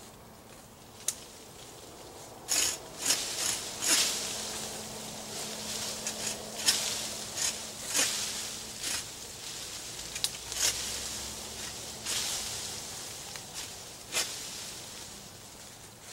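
Leafy branches rustling and crackling as fallen brush is pulled and cut with hand loppers, with about a dozen irregular sharp snaps of wood.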